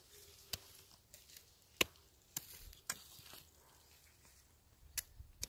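Scattered sharp blows of a small hand axe chopping at aralia roots in the soil, about half a dozen strikes at uneven intervals.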